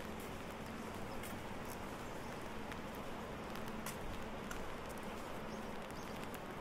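Rain falling steadily, with irregular sharp taps of drops hitting an umbrella overhead, and footsteps on wet pavement.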